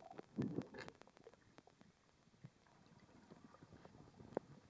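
Muffled underwater sound from a camera held under the sea: a few dull knocks and rumbles in the first second, then near-quiet with faint scattered clicks.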